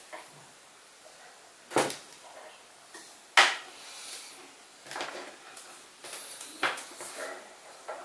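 Power cord and a plastic mains adapter being handled on a wooden tabletop: four sharp knocks and clacks, the loudest about three and a half seconds in, with soft rustling of the cable between them.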